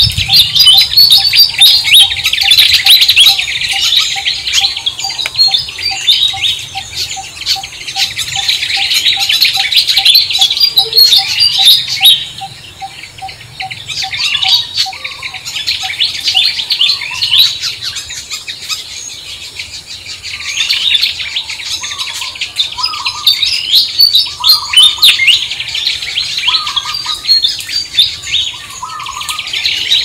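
A dense chorus of small birds chirping and twittering, thinning out for a few seconds about halfway through. Under it, a steady run of short pips at about two or three a second goes on for the first half, and a lower call repeats every second or so in the second half.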